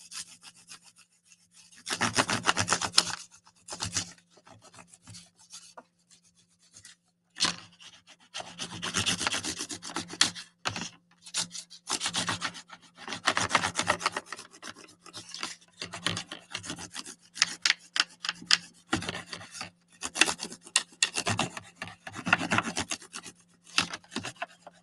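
Crayon scribbled rapidly back and forth across a paper plate: scratchy rubbing in runs of a few seconds with short pauses between.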